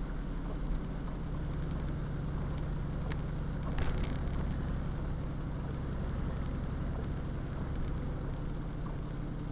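Car driving on a rain-soaked, partly flooded road, heard from inside through a dashcam: a steady low rumble of engine and tyres with a hiss of water on the road and windshield. There is a brief louder swish about four seconds in.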